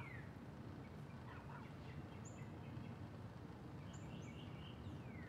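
Faint outdoor ambience: a steady low background noise with small birds chirping, including a few high whistled notes that slide downward.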